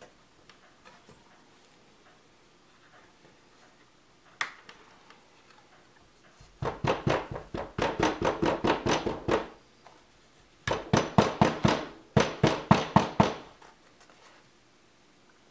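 Claw hammer lightly tapping 3D-printed PLA parts together through a folded paper towel: one single knock, then two quick runs of taps at about five a second.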